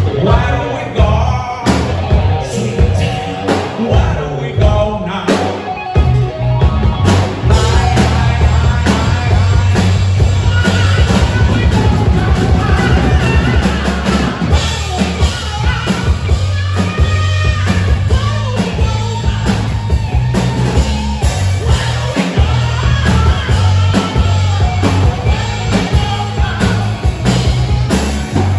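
Live rock band playing: a singer over electric guitars and drums. The first several seconds are choppy, stop-start hits, and the full band plays steadily from about seven seconds in.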